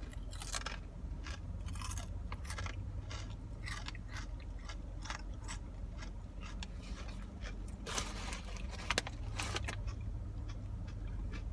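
A person chewing and biting crunchy food close to the microphone, with repeated sharp crunches and a denser burst of crackling about eight seconds in. A steady low hum from the car's heater runs underneath.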